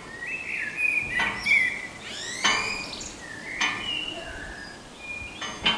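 Small birds chirping and whistling: a string of short calls, some sliding up or down in pitch.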